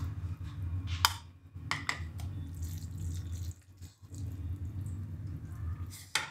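Cheesy pasta in white sauce being spooned from a pan into a plastic bowl: soft wet plops and scraping, with a few light knocks of spoon and bowl about a second in, around two seconds in and near the end, over a steady low hum.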